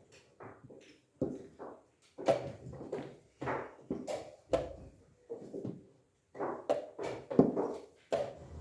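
A string of short, light knocks and clicks, unevenly spaced at roughly one to two a second: chess pieces being set down and knocked on the board during play.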